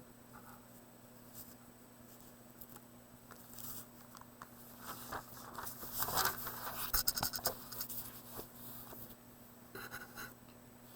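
Writing strokes scratching on a surface, scattered and short, with a busier run of quick strokes and taps around six to seven and a half seconds in. A faint steady electrical hum sits underneath.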